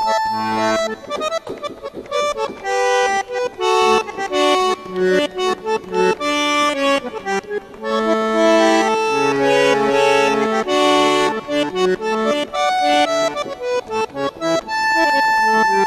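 Sampled bandoneon sound on a Korg Krome keyboard playing a chamamé melody, quick runs of notes and chords, with a long held note near the end.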